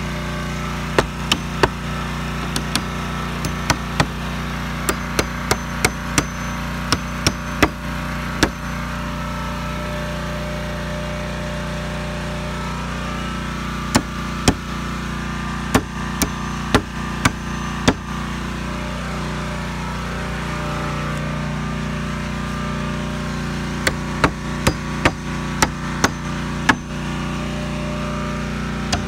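Claw hammer driving nails into wooden fence boards: runs of sharp strikes, about two a second, with pauses of several seconds between runs. A steady low hum carries on underneath.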